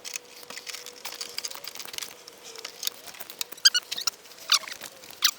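Irregular clicks, taps and rattles of hands handling parts during radiator work on a car, with two short high squeaks about three and a half and four and a half seconds in.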